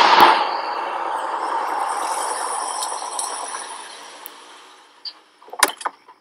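Pickup truck's running noise, loud at first and fading away over about five seconds. Near the end come a few sharp knocks as a plastic portable-toilet door swings open.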